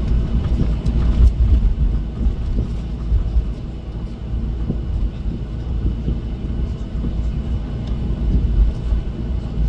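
Cabin noise of a Jeju Air Boeing 737 taxiing on the ground: a steady low rumble from the jet engines and rolling airframe, with a faint steady high whine above it.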